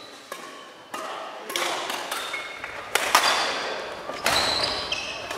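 Badminton rally in a large sports hall: several sharp, echoing racket strikes on the shuttlecock, with short squeaks of sneakers on the wooden court floor.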